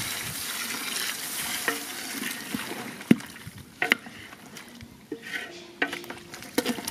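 Water poured into a hot pot of lamb stew, hissing and sizzling on the meat, then a wooden spoon stirring the stew and knocking several times against the side of the metal pot.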